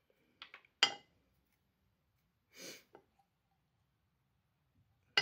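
A few small, sharp clicks and taps from handling a bottle of fly-tying head cement and its applicator, the sharpest just under a second in and another at the very end, with a short sniff about halfway through.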